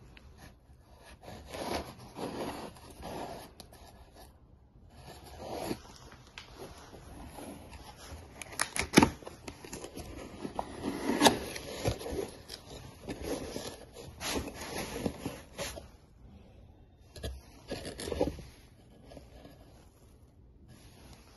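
Small cardboard box handled and opened by gloved hands: cardboard flaps scraping and rubbing, with a few sharp clicks and taps as the parts inside are lifted out.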